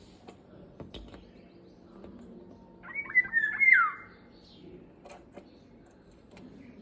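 Indian golden oriole calling once, about three seconds in: a short fluty whistled phrase of a few quick notes ending in a steeply falling whistle.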